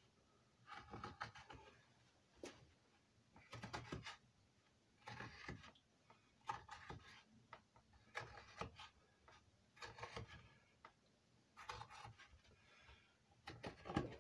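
Light scratchy strokes of lines being drawn on a carved wooden roof piece. There are about ten short strokes, roughly one a second, faint against near silence.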